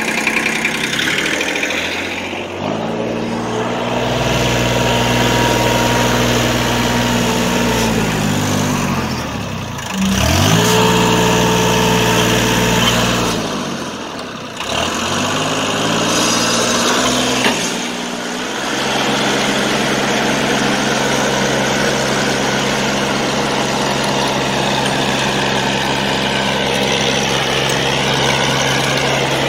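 Compact tractor engine running as it works a rear-mounted rotary tiller through dirt; its pitch dips and climbs back several times in the first half as the revs change, then holds steady under load.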